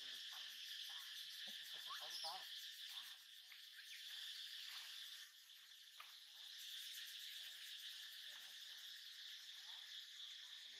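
Faint, steady high-pitched drone of forest insects, with a few short faint calls rising in pitch about two seconds in.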